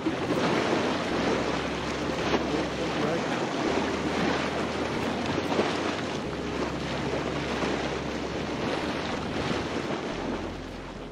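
Wind buffeting the microphone over the wash of waves on the water: an even rushing noise.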